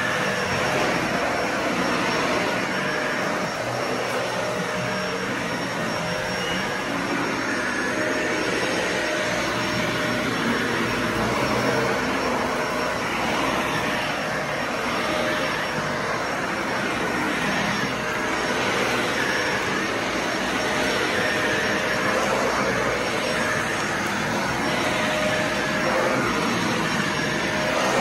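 Dyson Ball Animal 2 upright vacuum cleaner running steadily as it is pushed back and forth over a rug and a wood floor: a constant rush of air with a faint steady whine through it.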